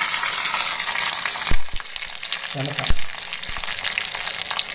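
Mustard seeds and curry leaves sizzling and crackling in hot oil in a small tempering pan. There are two sharp knocks, about one and a half seconds in and again near three seconds, as red and green chillies go into the pan. After that the sizzle is quieter.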